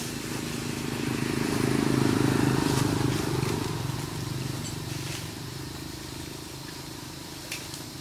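A motor vehicle's engine hum going by, growing louder to a peak about two seconds in and then fading away. There are a few faint clicks near the end.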